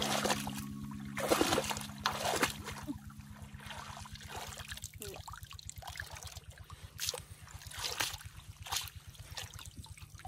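Shallow muddy water splashing and sloshing as a woven bamboo basket is scooped through it and lifted out by someone wading barefoot. The loudest splashes fall in the first few seconds, followed by softer sloshes and water dripping and trickling from the basket.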